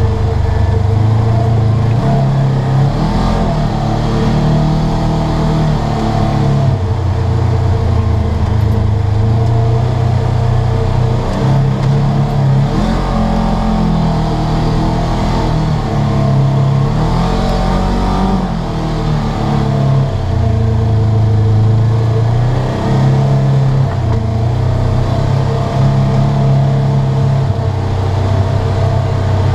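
Polaris RZR 900S side-by-side under way, its twin-cylinder engine running continuously, the pitch repeatedly rising and falling as the throttle is worked, heard from inside the cab.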